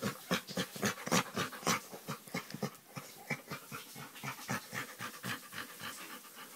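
Chocolate Labrador making weird, rapid breathy noises, about four a second, as he is scratched on the back. The breaths are louder for the first two seconds, then go on more softly.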